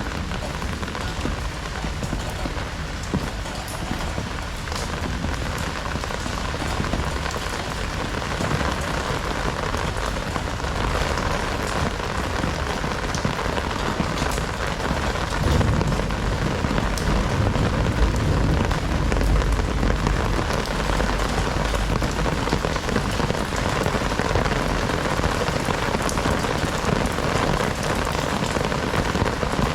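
Heavy rain pouring steadily onto outdoor surfaces, a dense even hiss of drops. A low rumble swells under it for several seconds in the middle.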